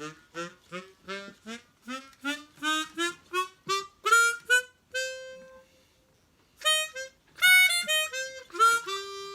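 A short solo tune on a small reedy wind instrument. A quick run of notes climbs in pitch, one note is held, and after a gap of about a second more notes follow.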